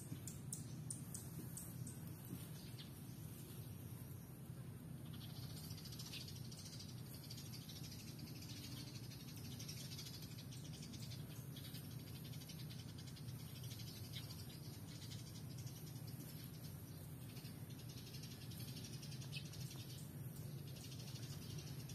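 Faint outdoor ambience: a high, rapid animal trill comes and goes in spells of a few seconds over a steady low hum.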